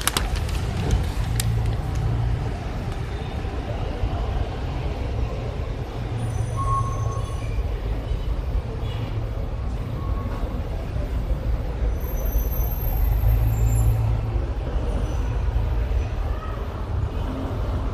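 Steady low rumble, with paper rustling and crackling about a second in as a newspaper page is handled.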